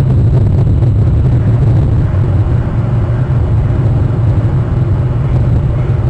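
A steady low rumble on the webcam microphone, even in loudness throughout.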